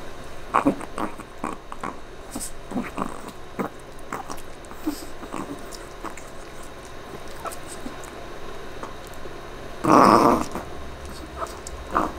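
A Chihuahua gnawing and crunching on a homemade calf neck bone chew: irregular clicks and crunches, with one louder burst lasting under a second about ten seconds in.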